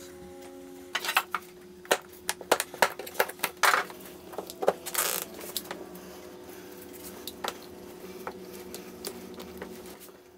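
Plastic spring clamps clicking and clattering as they are snapped onto the edge of a riding-mower seat cushion, a quick run of sharp clicks for the first five seconds or so and fewer after. A faint steady hum runs underneath.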